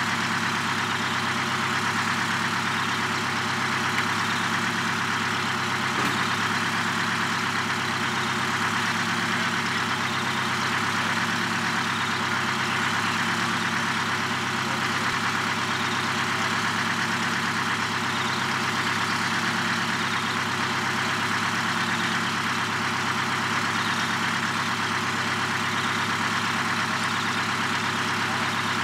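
Diesel truck engine idling steadily at an even speed, with no revving.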